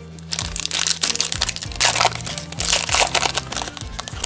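Foil trading-card pack wrapper being torn open and crinkled by hand, in clusters of crackling for about three seconds, over steady background music.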